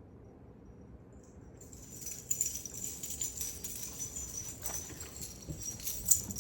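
Small metal pieces jingling and clinking, starting about a second and a half in and going on to the end, with a sharper clink near the end.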